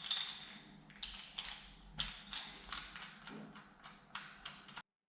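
A sharp metallic clink that rings briefly, followed by a string of light clicks and taps as metal tools and hardware are handled. The sound cuts off suddenly near the end.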